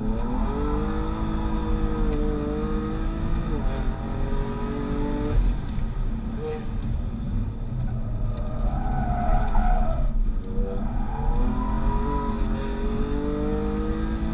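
2015 BMW M3 F80's twin-turbo straight-six, tuned and running catless downpipes and an M Performance exhaust, heard from inside the cabin under hard acceleration. The engine pitch climbs and drops with an upshift about four seconds in, then climbs again. The car lifts off into a corner, where the tyres squeal briefly, and it pulls hard again with the pitch rising toward the end.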